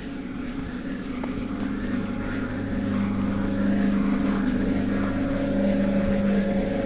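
ED9M AC electric multiple unit running, with a steady electrical hum. About two seconds in a higher tone joins and the sound grows louder.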